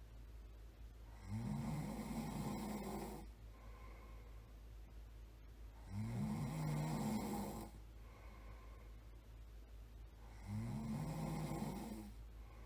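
A person snoring: three rough snores about four and a half seconds apart, each lasting about two seconds, with softer breaths between. A steady low hum runs underneath.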